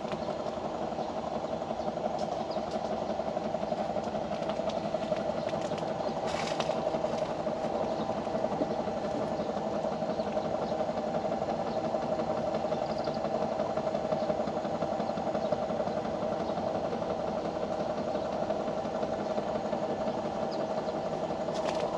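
A steady engine-like hum with a held low pitch. A brief rustle comes about six and a half seconds in.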